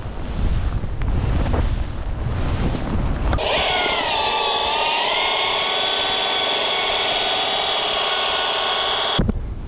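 Wind rushing over the microphone while skiing downhill. Then, about a third of the way in, the steady motor whine of a Zoa PL1 portable rope-tow prototype hauling the skier uphill along its rope: its pitch dips briefly, then holds steady, and it cuts off suddenly near the end.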